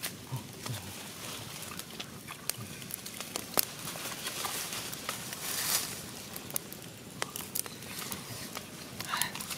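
Wood fire crackling under a clay cooking pot, with scattered sharp snaps, and a denser rustle of dry leaves and sticks being handled about halfway through.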